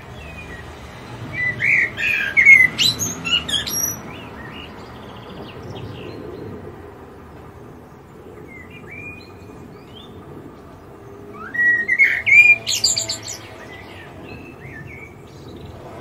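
A songbird singing two short phrases of quick, varied high notes, the second about nine seconds after the first, with a few faint notes between them.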